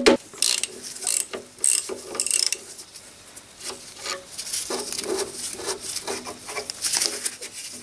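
A few sharp metallic clicks, then from about five seconds in a socket ratchet wrench clicking as it undoes one of the bolts that couple the steering to the front kingpin.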